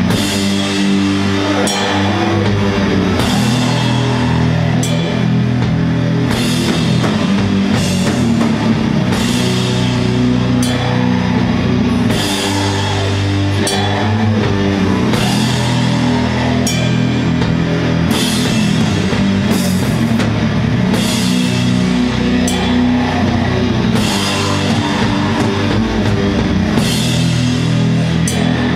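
Doom metal band playing live at a slow tempo: loud guitars and bass hold long, low chords under a drum kit, with crash cymbals struck about every second and a half.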